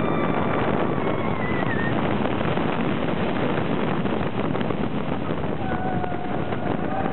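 Mammut wooden roller coaster train running at speed, heard from on board: a steady rumble and rattle of the wheels on the wooden track, mixed with wind rushing over the microphone.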